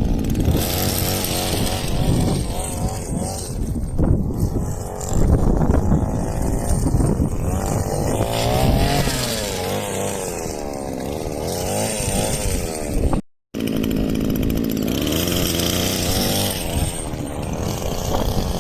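Small two-stroke petrol engine of a homemade RC car running hard, its note rising and falling over and over as the throttle is worked while the car is driven. The sound cuts out briefly about two-thirds of the way through.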